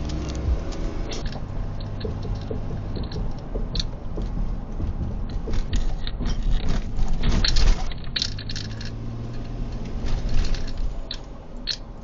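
Car driving noise picked up by a dashcam inside the cabin: a low road and engine rumble with frequent small clicks and rattles. The rumble peaks about seven seconds in, and a steady low engine hum sets in about nine seconds in.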